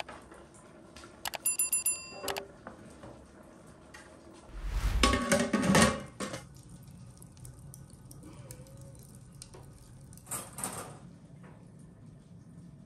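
A few quick ringing metal taps as a metal tray is knocked against a large metal cooking pot, then the pot's metal lid set down on it with a clatter and a dull thud about five seconds in.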